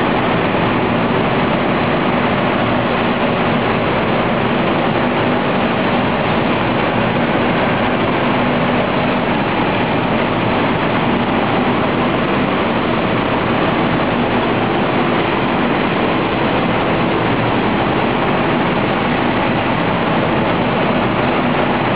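Reverse gravure coating unit running: a loud, steady machine drone from its drive motors and rollers, with a low hum in it.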